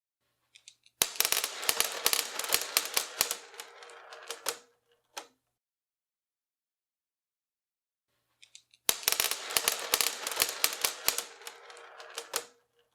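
A quick run of sharp mechanical clicks and rattles, thinning out over about four seconds and ending with one last click, played twice.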